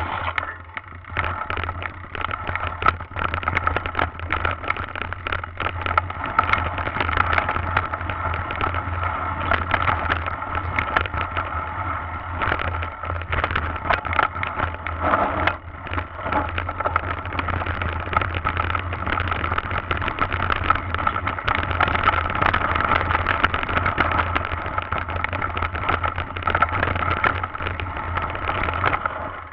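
Mountain bike being ridden over a rough dirt trail, heard from an action camera riding along with it: constant rattling and knocking from the bike and camera mount over bumps and ruts, with a steady rumble of wind on the microphone.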